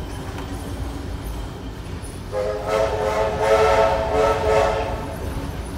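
Steam locomotive whistle blowing for about three seconds, starting a little over two seconds in, over the steady low rumble of the train rolling along.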